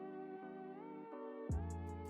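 Background music: held chords, with a deep bass and a drum beat coming in about a second and a half in.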